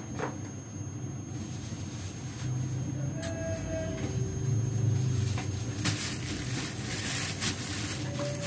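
Gas stove burner running under a pot of spaghetti boiling in water: a steady low rumble, with a hiss and crackling that grow stronger over the last few seconds.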